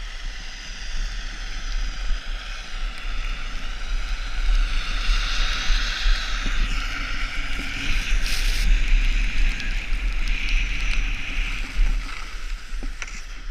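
Skis sliding and scraping over packed snow, with wind rushing over the microphone. The hiss swells through the middle and eases off near the end.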